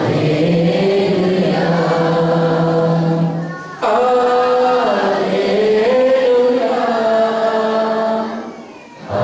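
A man singing a slow Hindi worship song into a microphone, in two long drawn-out phrases with held notes. There is a brief break about three and a half seconds in, and the voice fades near the end.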